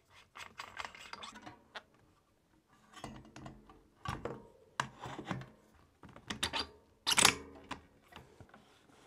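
Mountain bike front wheel being fitted into a suspension fork and its thru-axle pushed through the hub by hand: scattered clicks, rattles and rubs of metal parts, with a louder knock about seven seconds in.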